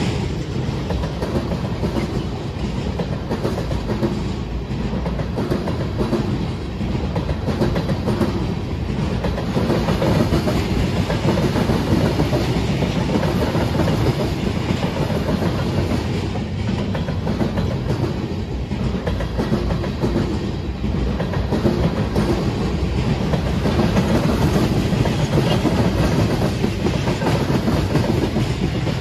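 Freight cars rolling past on the rails: a steady, loud rumble of steel wheels with a clatter that repeats every couple of seconds.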